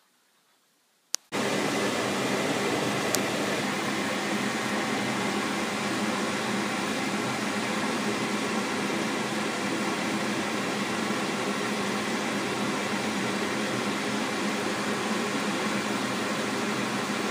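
A single click about a second in, then a steady fan-like rushing noise.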